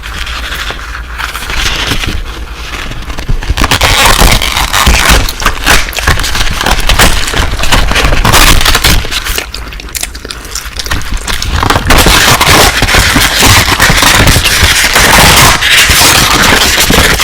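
Close-miked crunching and crackling chewing sounds, dense and continuous, as in ASMR eating. They grow louder about four seconds in, ease off briefly around the middle and pick up again.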